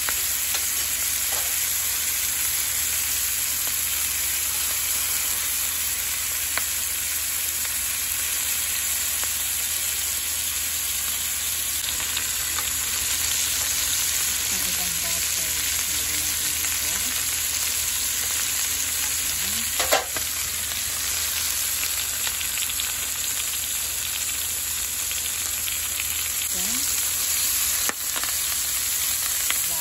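Chicken leg quarters frying in butter in a nonstick pan: a steady, even sizzle, with one brief knock about twenty seconds in.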